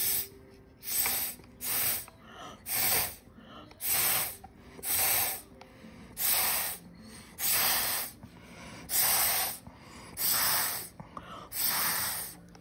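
Mouth atomizer blowing watercolour paint from a jar: about a dozen short, hissing puffs of breath, roughly one a second, each one spraying a mist of paint.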